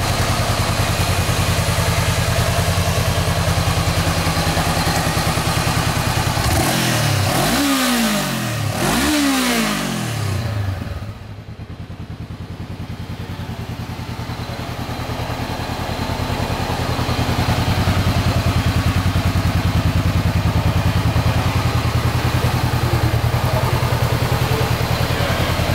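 Honda CBR500R's parallel-twin engine idling, with two quick blips of the throttle about seven and nine seconds in. It is quieter for a few seconds after the blips, then idles steadily again.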